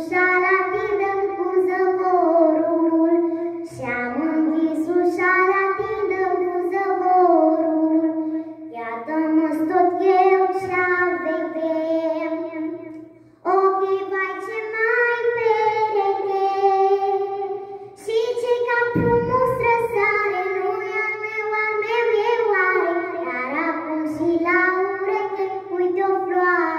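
A young girl singing a Romanian folk song solo into a microphone, in long held phrases with a wavering pitch, broken by short breaths about halfway through and again a few seconds later.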